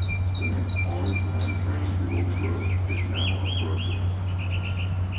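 Songbirds singing series of short repeated chirps and whistled notes, the pattern changing every second or so, over a steady low hum.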